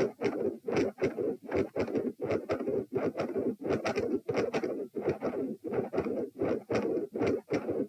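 Handheld Doppler probe over the heart at the pulmonary (P) position, giving the rhythmic whooshing pulses of blood flow, about three a second in pairs with each heartbeat. It is recorded lying down during a posture test for heart murmurs.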